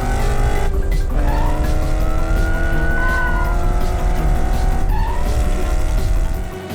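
Cartoon race-car engine sound effect revving hard with a deep rumble, its pitch climbing steadily and dropping back about a second in and again about five seconds in, as if shifting up through the gears, over background music.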